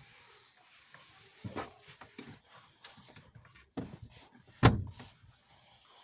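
Several knocks and clicks from hands handling a plastic car vacuum cleaner and its power cord, the loudest knock about three-quarters of the way through; the vacuum is not running.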